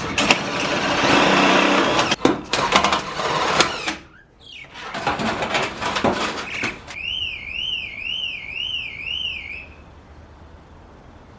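Loud, rough scraping and clattering in two spells, full of sharp clicks. It is followed by an electronic tone that warbles up and down about twice a second for nearly three seconds, like an alarm, and then cuts off.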